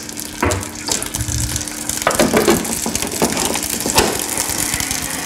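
Stovetop cooking in a kitchen: a steady hiss with scattered knocks and scrapes of utensils in a pan or pot.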